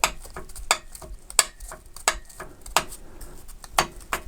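Irregular sharp metallic clacks, a few a second, from internal parts of a stripped-down Audi 1.4 TFSI (EA211) engine being moved by hand to check for play. The knocking is the sign of worn parts: they all rattle.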